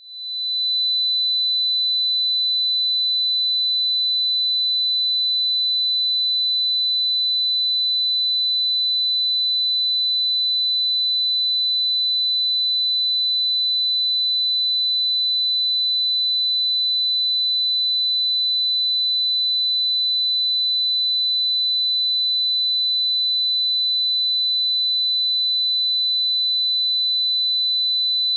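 A 4 kHz pure sine-wave test tone: one steady, bright, high-pitched note. It fades in over about the first second, then holds at a constant level.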